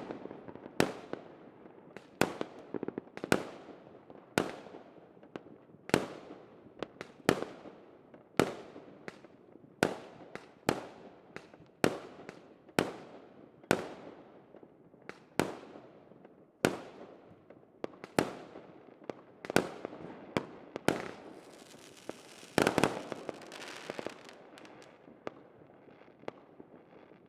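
Fireworks going off: sharp bangs about once a second, each trailing away in a fading tail. About three-quarters of the way through comes a denser burst of crackling, and the bangs then die away near the end.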